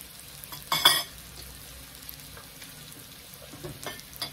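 Pork sizzling steadily on a tabletop electric grill plate. There is a short, loud, noisy burst a little under a second in, and a smaller one near the end.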